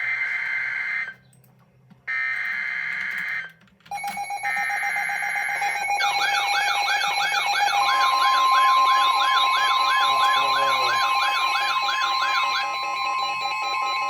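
NOAA Weather Radio Emergency Alert System activation. Three short bursts of raspy SAME data tones with brief silences between them open the alert. Then a fast warbling siren-like alarm and a steady high tone, the 1050 Hz weather radio warning tone, sound together; the warble stops near the end while the steady tone holds.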